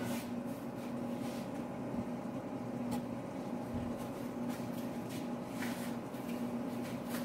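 Steady low hum of a running appliance with a few faint light ticks: kitchen room tone.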